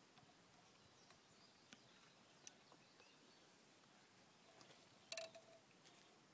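Near silence, with a few faint clicks and a brief cluster of soft ticks about five seconds in.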